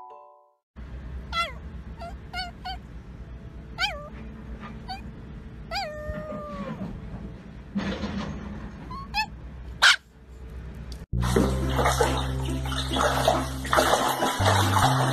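A small dog giving a string of short, high yips and whines that rise and fall in pitch, one drawn out into a long falling howl. About eleven seconds in it cuts to ducklings splashing in a shallow tray of water over background music.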